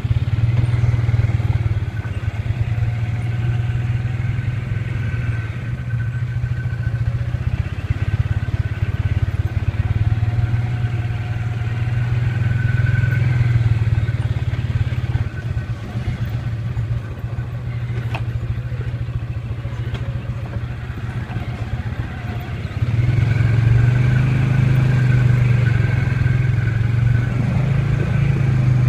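Off-road vehicle engine running steadily at trail speed, with a low drone that rises in level about three quarters of the way through. A single sharp click comes a little after the middle.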